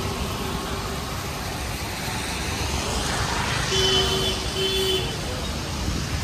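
Steady road traffic noise, with two short high tones a little past the middle.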